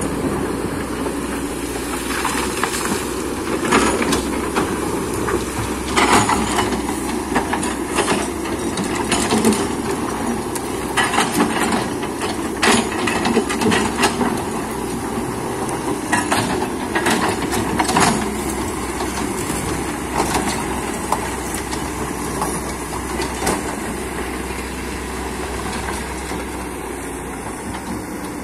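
Excavator at work: its diesel engine running steadily, with frequent irregular knocks and clatter from the bucket working stone and soil.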